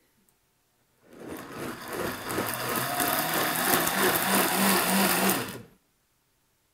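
Countertop blender pureeing a thick load of roasted tomatoes, chilies, tomatillos and chicken stock: it starts about a second in, builds up to full speed with a fast pulsing under the motor's whir, and stops abruptly near the end.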